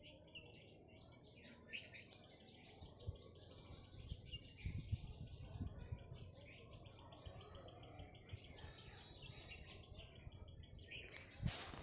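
Faint birdsong: many small birds chirping in rapid repeated notes over a low rumble, with a brief loud knock near the end.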